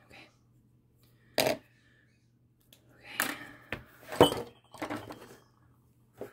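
Clicks, knocks and rustling of makeup containers and brushes being picked up and handled. There is a knock about a second and a half in, then a quick run of clacks, the loudest about four seconds in.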